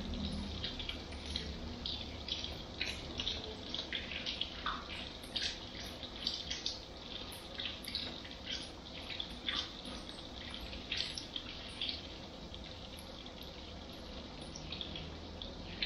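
Water from a handheld shower sprayer running over hair and splashing into a salon shampoo basin: a steady spray with many irregular splashes and drips.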